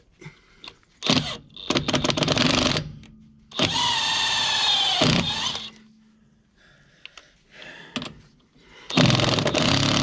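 DeWalt cordless impact wrench with a threaded lug-nut extractor, run in three bursts on a locking lug nut: a rattling hammering run, then a steady motor whine that sags in pitch as it lets off, then another hammering run near the end. The extractor can't bite on the smooth locking nut, so it just spins.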